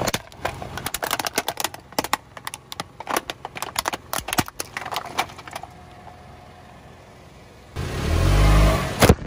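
Hard plastic face masks cracking and snapping under a slowly rolling car tyre, a rapid run of sharp cracks for the first five seconds or so. Near the end a car engine revs briefly, rising in pitch.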